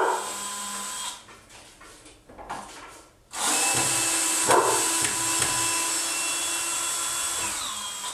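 Cordless drill running into a wooden frame. A short run of about a second comes first. From about three seconds in, a steady run of nearly five seconds follows, its whine dropping in pitch as the motor slows and stops near the end.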